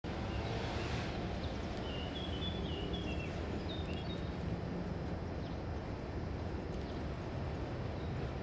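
Steady outdoor background rumble, low and even, with a small bird chirping a quick run of short calls from about two to four seconds in.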